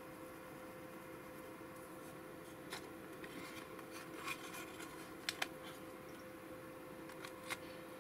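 Faint clicks and light taps of art supplies being handled and set down on a desk, a few scattered through the middle and near the end, over a steady low hum.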